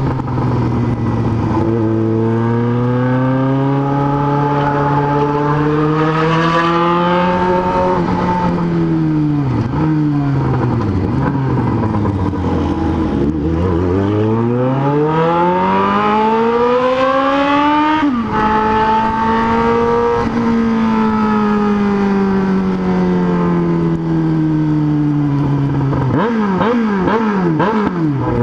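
Inline-four sport motorcycle engine out on the road. It holds steady revs, sinks as it slows and then climbs in pitch until the revs drop sharply at a gear change about eighteen seconds in. It runs steady again, and near the end the note turns uneven and wavering.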